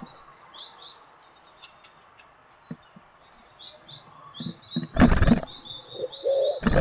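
Great tit chicks at the nest box giving short, high chirps, over and over. About five seconds in and again at the very end come loud bursts of noise, and a low wavering call sounds in the last second.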